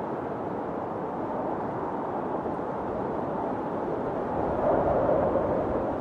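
Steady rushing noise, like a sleep-aid noise track or distant wind, swelling a little louder about five seconds in.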